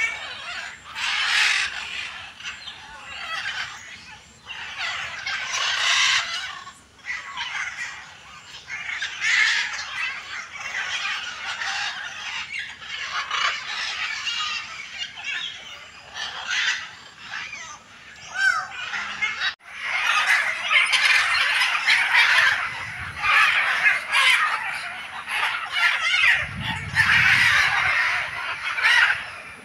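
A pen of turkeys and guineafowl calling: a harsh, continuous chatter of overlapping clucks and calls, which grows denser and louder after about twenty seconds. A low rumble comes in near the end.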